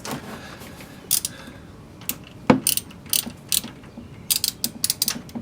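Socket ratchet clicking in short runs while loosening an oil drain plug. There is a single sharp click about two and a half seconds in and a quicker cluster of clicks near the end.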